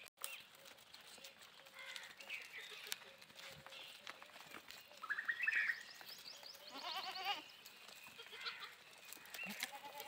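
Goats bleating: a short rising call about five seconds in, then a longer quavering bleat around seven seconds. Short high chirps are scattered between them.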